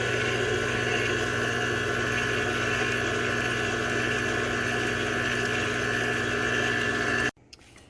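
Electric mixer running steadily at an even speed, beating pumpkin puree into a wet batter of oil, sugar and eggs; it cuts off suddenly near the end.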